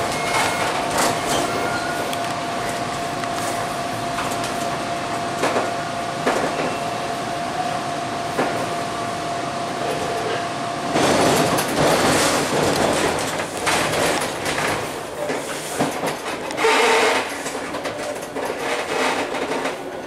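TTC T-1 subway train running on open track, heard from inside the leading car: wheel-on-rail noise with a thin steady hum and scattered clicks over rail joints. About halfway through it turns louder and rougher.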